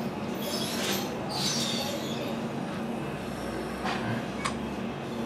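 Four short brushing sounds from a fingertip tapping and sliding on the glass of a smartphone's screen, in two pairs, over a steady low background hum.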